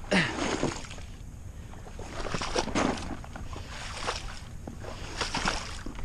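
Wind rumbling on the microphone, with scattered scrapes and crunches of shoes on ice and snow.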